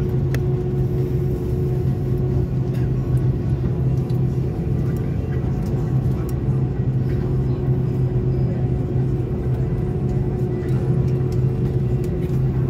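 Cabin noise of an Airbus A330-200 taxiing, heard from a seat beside the wing: its General Electric CF6-80E1 turbofans running steadily at idle, a constant low drone with a fainter higher hum and no spool-up.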